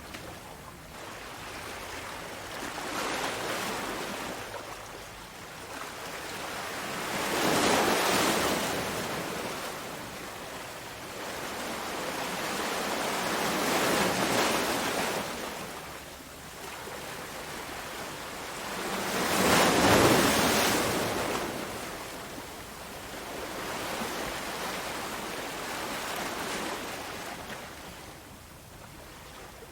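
Ocean surf: waves swell and wash in, then fade back, about every five to six seconds, with two surges louder than the rest.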